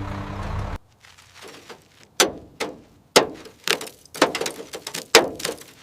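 Music with a steady low drone that cuts off abruptly under a second in, followed by a run of about ten sharp knocks and cracks, irregularly spaced, each with a short ringing tail.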